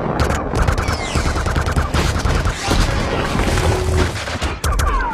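Rapid automatic weapon fire from a film battle, about ten shots a second, mixed with explosions and a low rumble.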